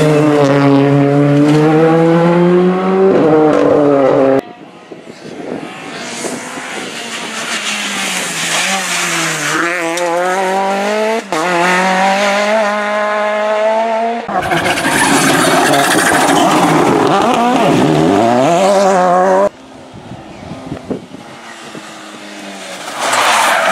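Rally car engines at full throttle, several cars one after another: a Ford Fiesta R5 passing close, a Peugeot 208 pulling away with its engine note rising and falling, then a Ford Escort approaching, rising near the end.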